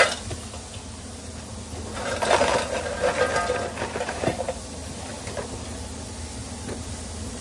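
Fries tipped from a stainless steel bowl into a paper-lined serving basket: a knock of the bowl at the start, then a couple of seconds of rustling and scraping as the fries slide onto the paper. A steady low hum runs underneath.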